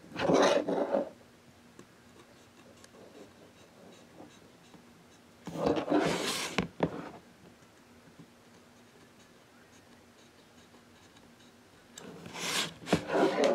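Wood rubbing and scraping in three short spells about six seconds apart, as a wooden clock blank is worked with a hot-knife blade. A faint steady hum runs underneath.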